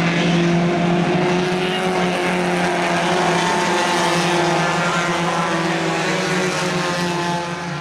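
Engines of several small stock cars racing together on an oval track, a steady, loud drone of overlapping engine notes.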